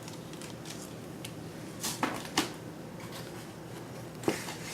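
Hard plastic graded-comic slabs being handled: a few sharp clicks and knocks, two close together about two seconds in and another near the end followed by a brief rustle, over a low steady hum.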